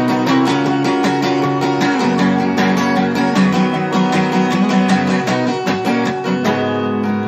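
Acoustic guitar strummed through an instrumental passage of a folk song, chords changing every second or two over steady bass notes.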